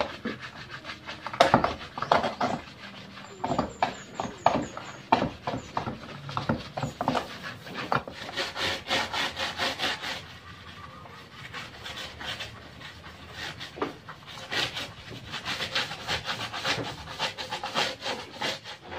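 Scouring pad scrubbing the plastic inner tub of a top-loading washing machine in runs of quick back-and-forth strokes, with a quieter lull about halfway through.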